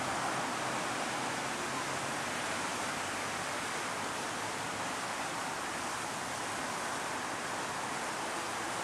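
Steady outdoor street background noise: an even hiss with no distinct event standing out.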